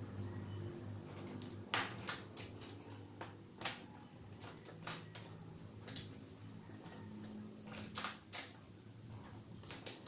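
Scattered clicks and knocks of hands handling a drum vacuum cleaner's plastic lid and undoing its metal clip latch, over a steady low hum; the vacuum motor is not running.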